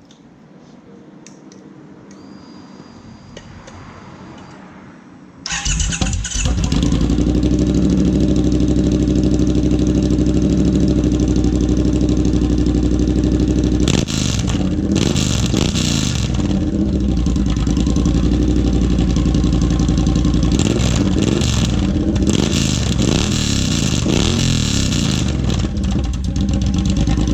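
Triumph Bobber 1200 cc parallel-twin engine through open drag pipes with an X-pipe, started about five seconds in, idling steadily with a low, raspy growl, then revved repeatedly in the second half.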